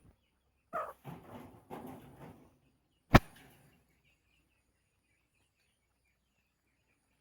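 Poultry-yard sounds: a rough, noisy burst about a second in, a single sharp click just after three seconds, then faint high chirping.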